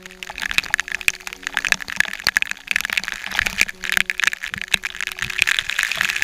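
Waterfall spray pelting the camera: a dense patter of sharp drop hits over the steady hiss of falling water. Soft background music with long held notes underneath.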